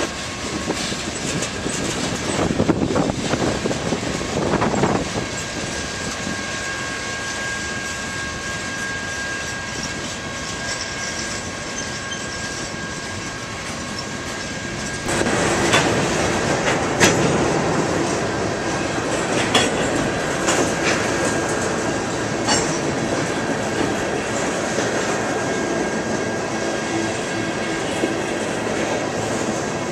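Freight train cars rolling past close by: a continuous rumble of steel wheels on rail, with clacks and knocks over the rail joints and a thin steady squeal of wheels. It gets louder about halfway through.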